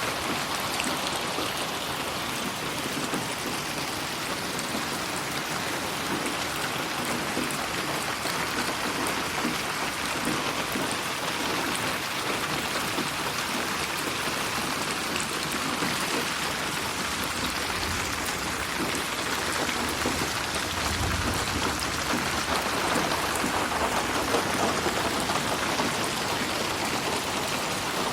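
Steady rain falling and pattering on a surface, with a faint low rumble about three-quarters of the way through.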